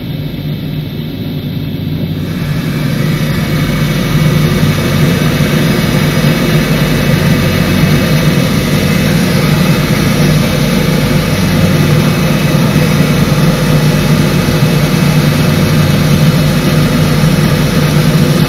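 Jet engines of a Cathay Pacific Boeing 747-400 running, heard through the closed cab of a de-icing vehicle: the sound grows louder about two seconds in, then holds a steady loud rumble and hiss.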